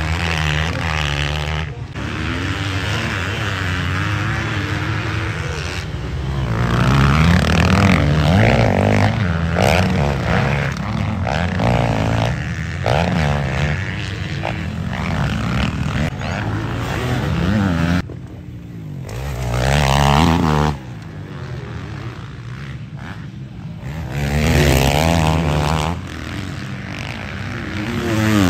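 Several motocross dirt bikes racing on the track, their engines revving up and down through the gears as they accelerate out of corners and over jumps, with loud swells as bikes pass close by.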